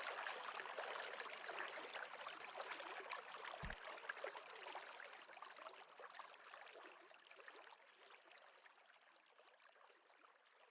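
Nature-ambience track of a trickling, babbling stream, fading out gradually to silence.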